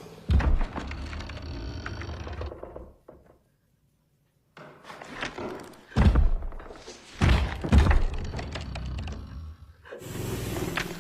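Heavy thud sound effects: a loud hit just after the start trails into a low rumble that dies away, then after a short silence come three more hard thuds, each with a rumble behind it.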